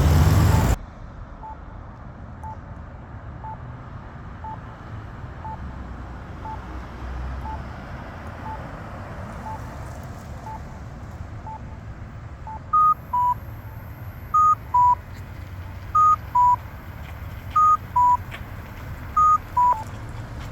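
Campbell accessible pedestrian signal push button: a faint short locator tick about once a second, then, about two-thirds of the way in, a loud two-note cuckoo tone, a higher note falling to a lower one, repeated about every second and a half, marking the walk phase.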